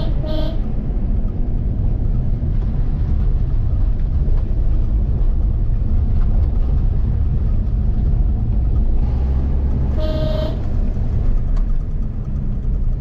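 A car driving along with a steady low rumble of engine and road noise, and two short horn honks, one right at the start and one about ten seconds in.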